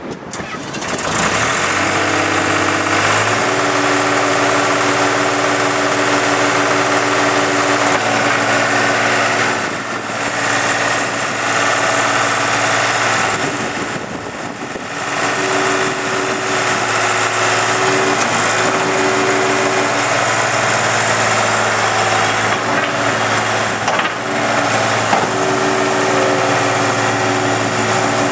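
New Holland L180 skid steer's diesel engine starting up about two seconds in and then running steadily, its engine speed stepping up and down several times.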